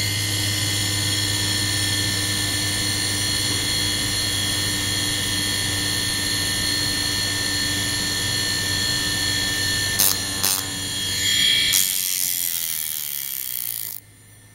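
Hard-disk motor driven by a self-oscillating Stingo pulse-motor circuit, running with a steady high electronic whine of several fixed tones over a low hum. About ten seconds in come two sharp clicks, then a brief rushing noise, and the sound drops away abruptly near the end.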